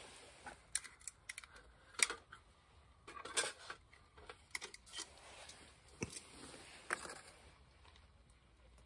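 Light clicks and plastic crinkling as food packaging and utensils are handled by hand, with a sharp click about two seconds in and another cluster around three and a half seconds.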